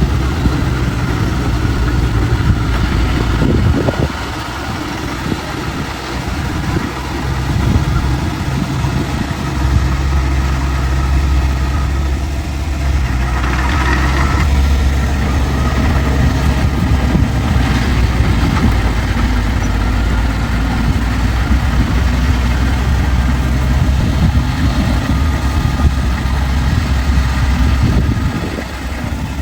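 Heavy diesel earthmoving machine running steadily under load, its low engine note getting heavier about ten seconds in.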